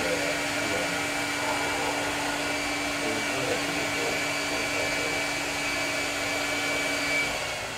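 A hair dryer running steadily: an even whirr of rushing air with a steady hum and a thin high whine. It switches off near the end.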